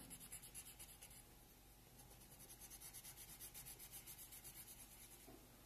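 Faint coloured pencil strokes scratching on drawing paper in a quick, even rhythm of short shading strokes.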